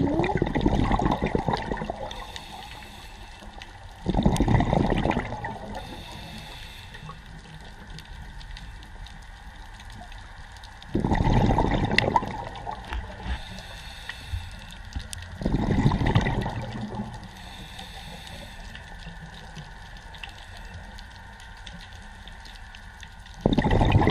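Scuba diver breathing through a regulator underwater: about five loud bursts of exhaled bubbles rushing and gurgling, every four to seven seconds, with a quieter hiss between them.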